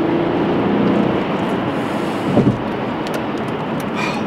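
Cabin sound of a 2007 Mercedes-Benz S65 AMG's twin-turbo 6-litre V12 pulling in a roll-on acceleration at highway speed: a low engine tone over steady road and tyre noise, the tone fading about a second in. A brief thump about two and a half seconds in.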